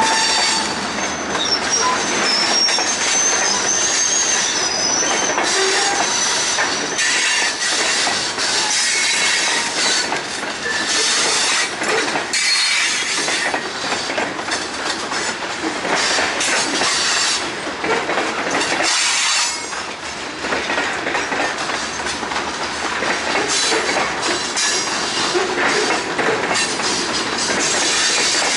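Covered hopper cars of a Vermont Rail System freight train rolling past close by, their wheels clacking over the rail joints. A high, wavering wheel squeal rises over the rumble in the first several seconds.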